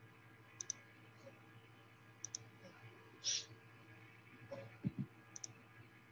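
Faint sharp clicks in quick pairs, three times, over a low steady hum on a Zoom call's audio, with a short hiss about midway and two low knocks toward the end.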